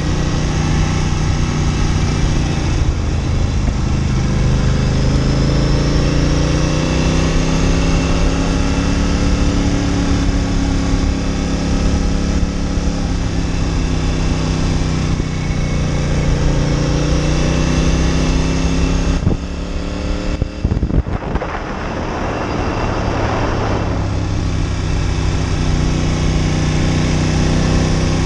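Ducati Monster 900's air-cooled L-twin engine under way, its pitch rising and falling through the gears on a slow uphill ride. About two-thirds of the way through the engine note briefly drops back and a hissing rush takes over for a few seconds before the engine comes back.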